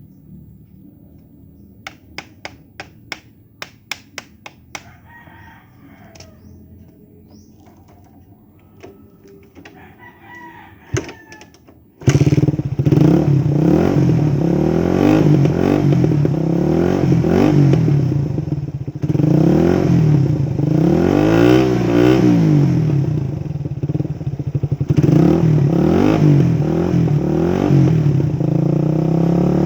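A quiet stretch with a quick run of sharp clicks, then a rooster crowing in the background. About twelve seconds in, a motorcycle engine cuts in loud through an aftermarket Akrapovic 51 mm big-elbow exhaust with a dB killer fitted, revved again and again so its note keeps rising and falling.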